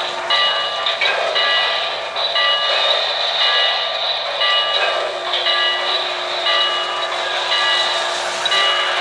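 O-gauge model steam locomotive running on a layout, its sound system giving a steady rushing train noise. A set of ringing tones pulses on and off in a regular rhythm of roughly half-second beats.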